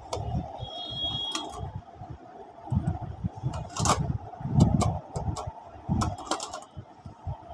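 A tin geometry box being handled and turned over by hand: light metallic clicks and taps, with soft thumps of handling, over a steady faint hum.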